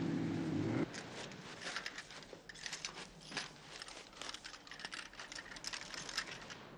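A mountain lion's low, drawn-out cry that cuts off abruptly about a second in, followed by a run of small, irregular clicks and rustles.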